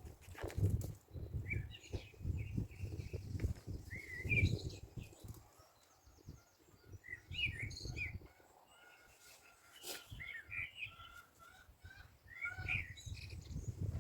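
Small birds chirping in short, scattered calls, over uneven low rumbling on the microphone.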